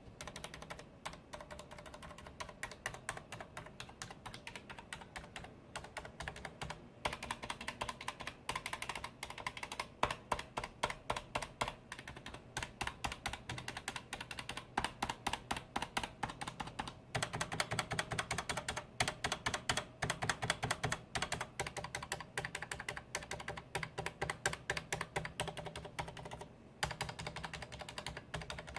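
Leopold FC980M mechanical keyboard with Cherry MX Silent Red switches, keys pressed one at a time and stabilized keys pressed, in quick runs of several strokes a second with short pauses between runs.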